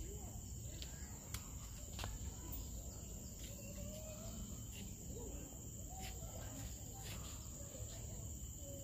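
Steady, high-pitched insect chorus over a low rumble, with a couple of faint clicks about one and two seconds in.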